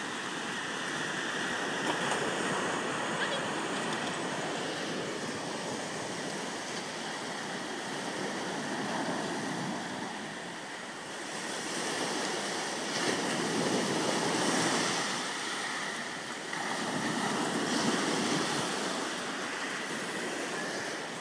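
Small sea waves breaking and washing up a pebble beach, a steady surf rush that swells louder every few seconds as each wave comes in.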